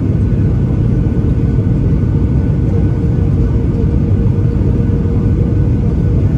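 Steady cabin roar inside a Boeing 737-800 on its descent to land, heard from a window seat over the wing: airflow and the CFM56 turbofan engine make a loud, even rumble, with a steady hum running through it.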